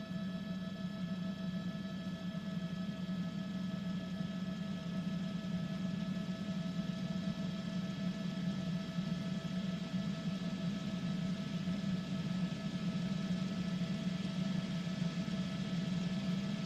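A steady drone of several held tones, strongest low down, with no beat or change in pitch.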